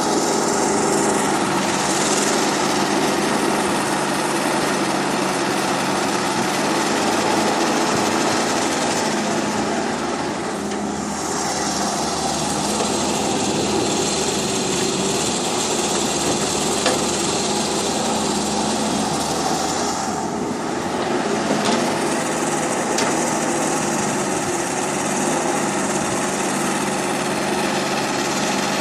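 Small electric motors and gearboxes of radio-controlled toy construction vehicles running with a steady whirr. The whirr briefly drops about a third of the way in and again about two-thirds of the way in.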